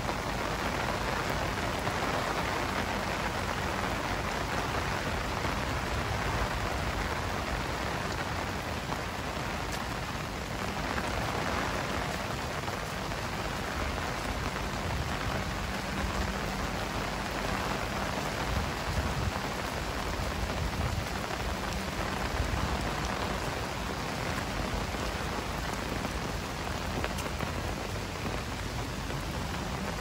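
Heavy rain falling steadily, a dense even hiss of drops on hard surfaces.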